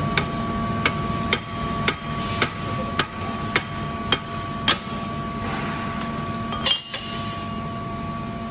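Hammer blows knocking the bearings out of a rotary screw compressor air end, about two evenly spaced strikes a second for roughly five seconds, then one more strike near the end. A steady background hum with a constant tone runs underneath.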